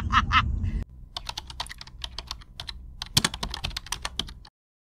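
Rapid, irregular keyboard typing clicks, a typing sound effect, that start after an abrupt cut about a second in and stop suddenly near the end. Before the cut, the tail of a woman's laughter over car cabin rumble.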